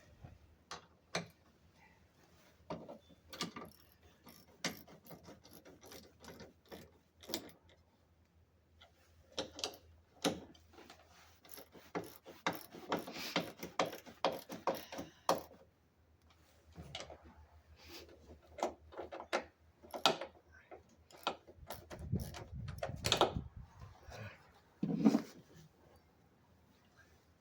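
Hand socket ratchet with a 13 mm socket clicking in quick runs as bolts are turned in to fasten a tool box bracket in a truck bed. A heavier metal knock comes about two thirds of the way through.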